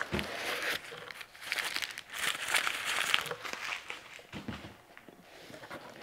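Tissue paper crinkling and rustling as it is handled, in several irregular spells with small crackles.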